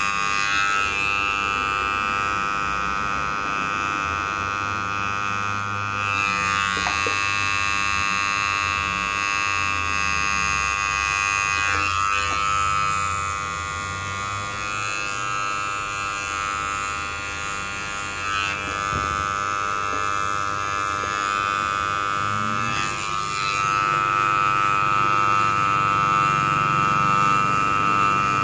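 Electric hair clippers buzzing steadily as they are run over the head and along the jaw, a little louder in the last few seconds.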